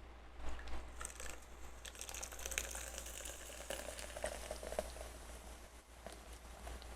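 Food being handled on a plate: light crackling and rustling with many small clicks, busiest in the first few seconds and fading near the end.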